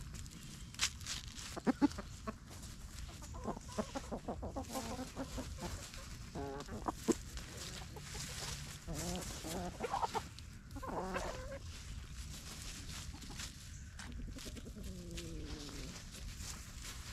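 Backyard chickens clucking as they forage, with short calls scattered throughout and a longer falling call near the end, over light scratching and rustling in leaf litter.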